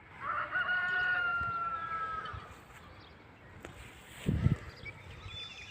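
A farm animal's call: one long, held cry of about two seconds that falls slightly in pitch, followed by quiet outdoor background and a brief low thump near the end.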